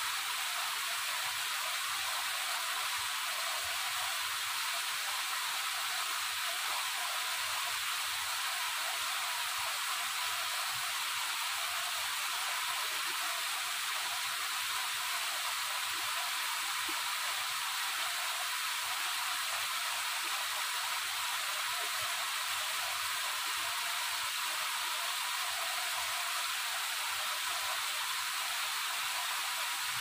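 Waterfall: a steady, unbroken hiss of rushing water, mostly high and airy with almost no low rumble.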